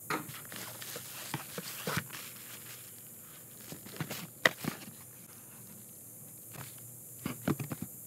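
Unpacking noises as hands lift paper product boxes out of a cardboard shipping box lined with bubble wrap: scattered rustles, crinkles and light knocks, a few at a time, with the sharpest clicks a little past the middle and near the end.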